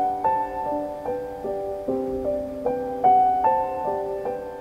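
Background music: soft piano notes struck one after another in a repeating broken-chord pattern, about two or three notes a second, each left to ring.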